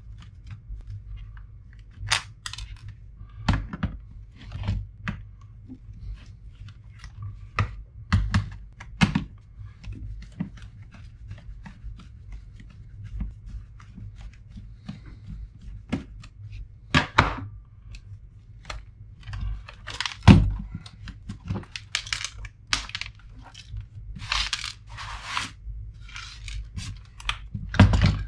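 Disassembly of an Epson Action Note 660 CX laptop by hand and small screwdriver: scattered clicks, taps and plastic scrapes, with a few louder knocks, the loudest about twenty seconds in, and a stretch of scraping a few seconds before the end.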